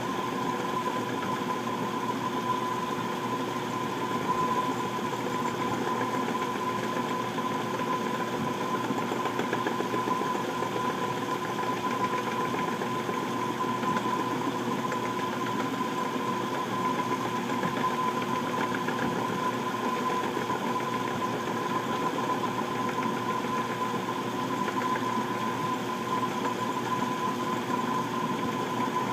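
Small benchtop metal lathe running steadily, its motor and drive giving a constant whine, while a steel spoon bit is turned.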